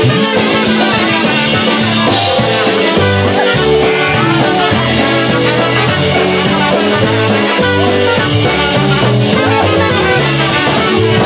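Live band playing up-tempo dance music: two trumpets over electric bass and a drum kit keeping a steady cymbal beat.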